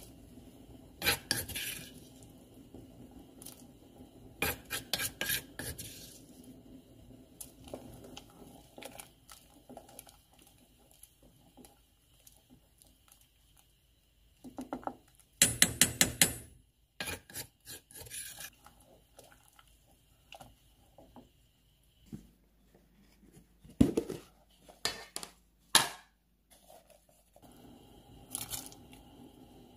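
A utensil clinking and scraping against a stainless steel pot while soup is stirred, in several short bursts of rapid clinks. The loudest burst comes about halfway through.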